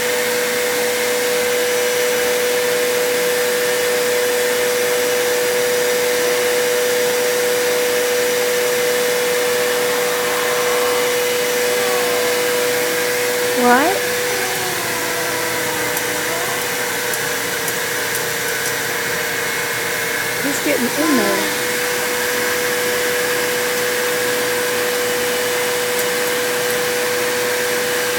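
Vacuum cleaner running steadily with a constant whine. Twice, about halfway through and again about three quarters through, a short sliding voice or call rises over it.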